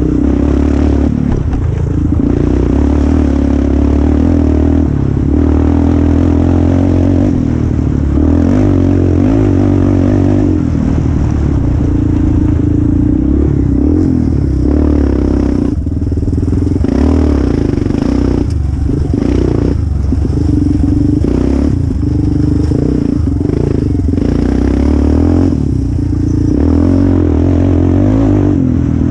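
Yamaha Raptor quad's engine pulling hard under full throttle over a rough woods trail, the throttle chopped and reopened several times in the second half. Chassis and bodywork rattle over the bumps.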